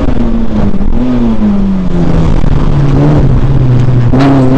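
Peugeot 106 rally car engine heard inside the cabin. The revs fall steadily over about two seconds as the car slows, then hold low. About four seconds in they jump back up sharply with a short loud crack.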